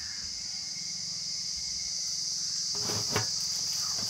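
A steady, high-pitched chorus of insects chirring, with a few short clicks about three seconds in.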